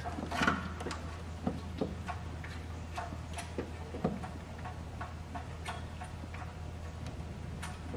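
Scattered, irregular light clicks and taps of hand tools and parts against metal during spark-plug work in a V8 engine bay, over a steady low hum.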